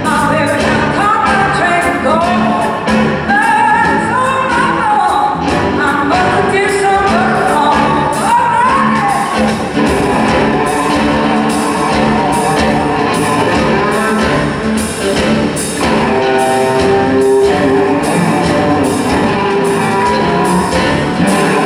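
Live electric blues band playing: electric guitars, bass guitar and drums on a steady beat, with a voice singing and gliding, bending melody lines in the first half.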